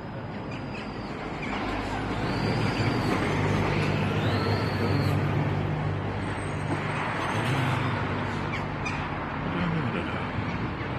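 A motor vehicle going by outdoors: a steady low engine hum and road noise swell for a few seconds and then slowly fade.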